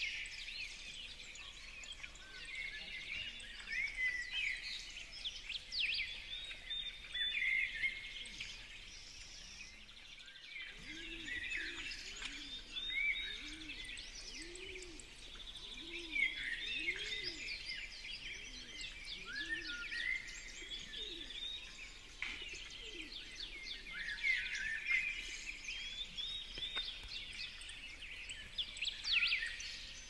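House sparrows chirping busily in a steady stream of short, high chirps. Through the middle, a series of low, arching cooing notes about a second apart sounds underneath.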